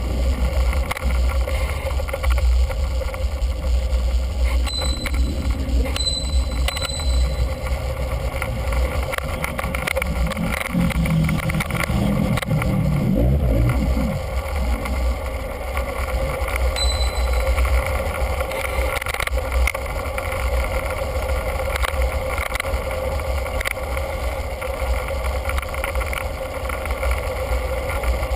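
Wind rumble and riding noise from a camera mounted on a moving bicycle, with a steady hum running under it. A few brief high rings come twice early on and once more later.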